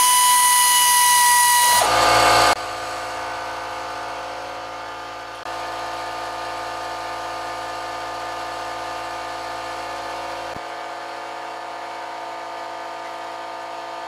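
Handheld cordless power tool spinning a socket to run off a nut, a steady high motor whine for about two seconds with a short louder burst just after. A quieter steady electric buzz with several tones continues after it.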